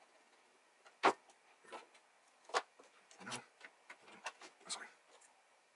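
Irregular clicks and light knocks from a screwdriver, pliers and a circuit board being handled in an opened metal chassis. There are about ten short clicks, the loudest about a second in.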